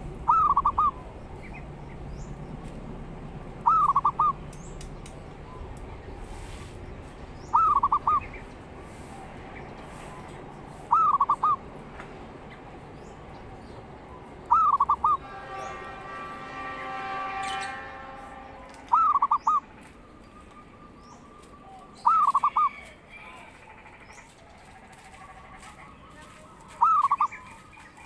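Zebra dove cooing: a short burst of quick coo notes, repeated eight times about every three and a half to four seconds. A fainter, longer sound with many stacked harmonics swells for about three seconds just after the middle, then stops.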